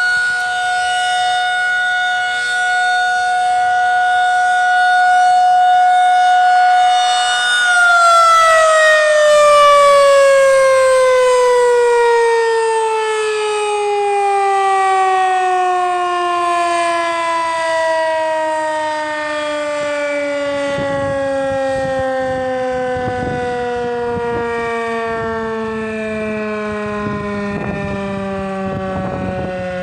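Federal Signal 2001-SRN outdoor warning siren during a test, sounding a steady single tone. About eight seconds in it begins to wind down, its pitch falling slowly and smoothly to a low tone by the end as the rotor coasts to a stop.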